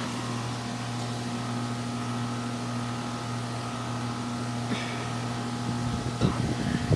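Steady low hum of a running Bryant central air conditioner outdoor unit, with a couple of faint knocks near the end.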